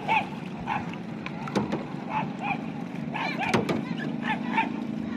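Kayak paddling: a double-bladed paddle stroking through the water from a clear plastic kayak, with a couple of sharp knocks of the paddle against the hull.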